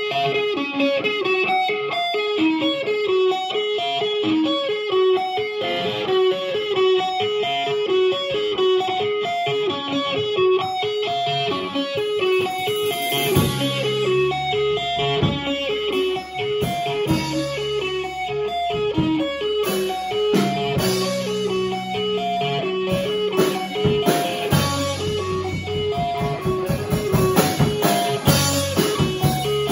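Rock band playing live: an electric guitar plays a repeating riff over drums, and a bass guitar comes in about halfway through, with cymbals louder from then on. No vocals.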